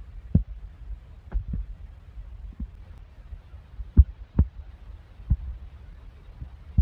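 Soft, irregular low thuds of hands peeling and pressing ripe mangoes in a steel plate, about eight knocks spread unevenly over a low rumble.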